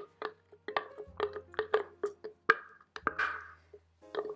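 A wooden spoon knocking and scraping inside a plastic blender cup, working the last of a thick sauce out of it: a string of light, irregular taps, with a short scrape about three seconds in.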